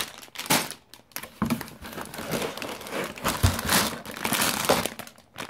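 Clear plastic Lego parts bags crinkling and rustling as they are handled, in irregular crackly bursts.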